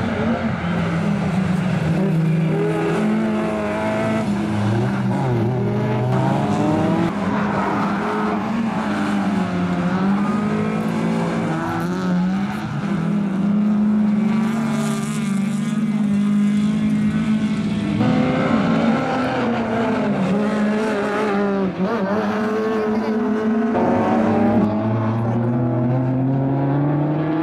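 Several rallycross cars racing, their engines revving up and falling back through gear changes as they take corners, more than one engine note at a time. The sound shifts abruptly several times as the scene cuts to another part of the race.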